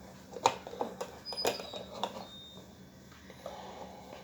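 A handful of light clicks and knocks, irregularly spaced and mostly in the first two seconds, one of them followed by a brief high ring.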